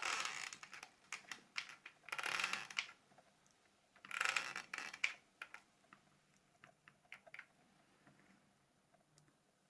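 Hands working on a small plastic phone battery pack during reassembly: three short rasping bursts about two seconds apart, then a run of light scattered clicks that die away.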